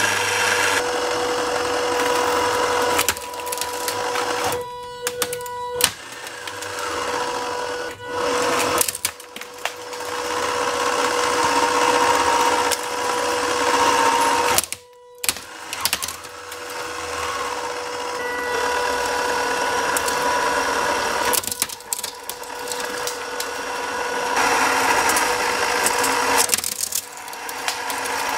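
3D-printed PLA shredder driven by a battery-powered electric gearbox, running with a steady whine from the motor and gears and crackling as material is shredded between its cutters. It stops briefly about halfway through, then runs on.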